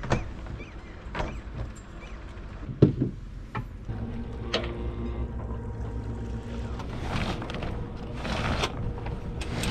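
Small sailboat's outboard motor running steadily under way, a low even hum that settles in about four seconds in. Before that come a few sharp knocks.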